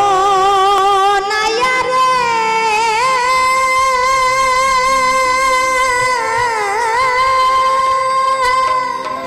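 A woman singing a baul song, holding one long wavering note with a strong vibrato after a rising opening phrase, over a quieter instrumental backing.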